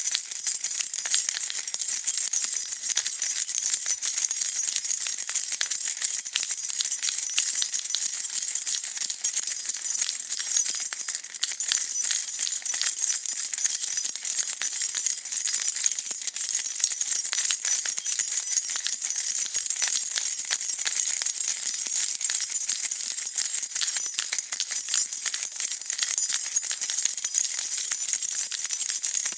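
A bunch of metal keys being shaken and jingling without a break, a dense stream of small bright clinks.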